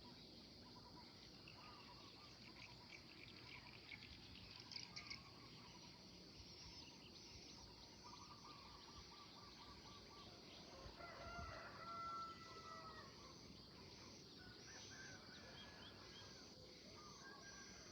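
Faint dawn chorus of birds chirping and trilling, over a steady high hiss. About eleven seconds in, a longer, lower call with several tones at once stands out as the loudest sound.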